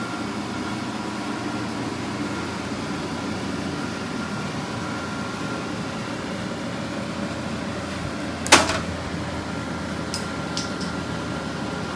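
Steady hum of a room air conditioner. About eight and a half seconds in, a small part drops and hits the floor with one sharp clack, followed by a couple of faint clicks.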